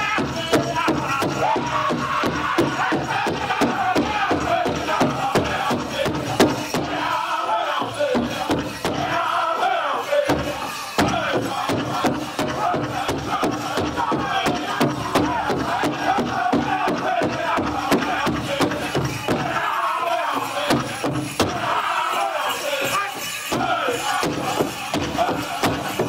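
A powwow drum group singing a chicken dance song in high voices over a steady, fast, unison beat on a big drum. The drum drops out briefly a few times, for the duck-and-dive contest, while the singing carries on.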